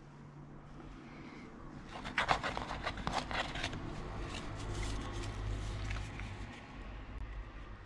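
Paper instruction leaflets rustling as they are handled and shuffled by hand, with a burst of crisp crackling about two seconds in, then lighter handling.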